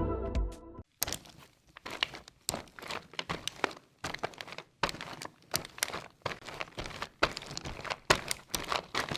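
Irregular crisp crinkling and crackling: many small sharp clicks in quick, uneven succession, starting about a second in once the music ends.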